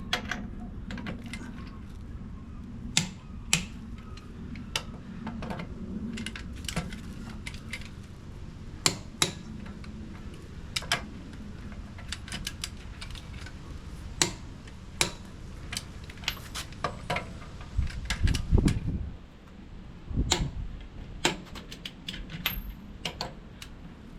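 Wheel nuts being fitted and tightened on a car wheel: irregular sharp metallic clicks and clinks of the socket and wrench on the nuts, over a steady low hum. A heavier low thump comes about eighteen seconds in, and the hum stops soon after.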